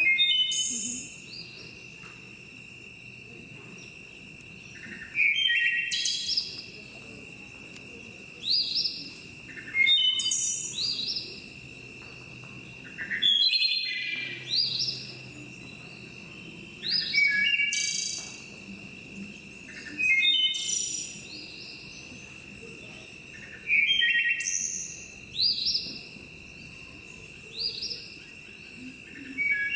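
Recorded birdsong played as the dance's soundtrack: a songbird repeating short chirping, whistled phrases every few seconds over a steady high tone.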